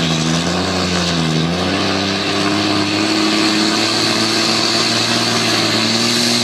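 Tractor-pulling tractor's engine running hard under load. Its pitch dips and recovers in the first second and a half, then holds steady and slowly rises.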